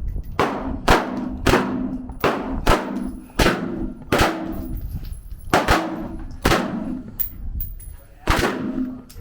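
Gunfire on an outdoor shooting range: about a dozen shots at irregular spacing from more than one gun, some loud and close with a ringing echo trailing each, others fainter.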